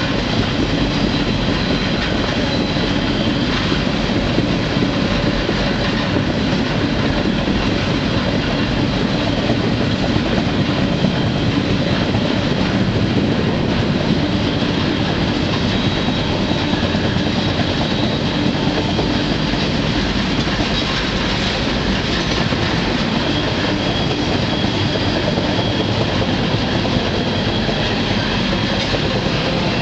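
Freight train rolling along, heard from aboard a car: a steady loud rumble of steel wheels on the rails, with a faint high wheel squeal coming and going.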